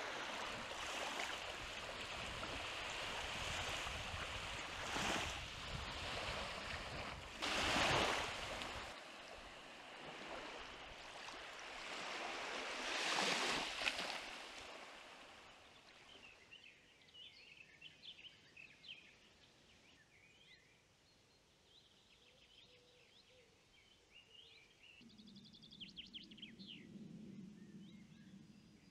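Small waves of the Baltic Sea washing onto a sandy shore, a steady rush that swells every few seconds. Past the middle it gives way to a quieter stretch of songbirds chirping.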